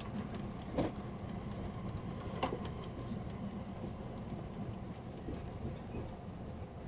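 Cabin noise of a JR East E657 series limited express train running at speed: a steady low rumble from wheels and running gear, with a few sharp clicks about a second in, again a second and a half later, and near the end.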